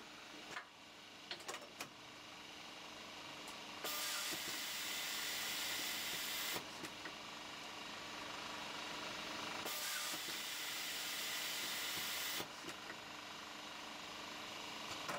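Print-and-apply labelling machine running: two long hisses, each about three seconds, with short mechanical clicks and clacks between them, over a steady machine hum.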